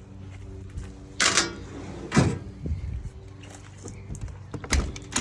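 A few knocks and thumps over a steady low hum: a scraping rush about a second in, a heavy thump about two seconds in, and sharp knocks near the end.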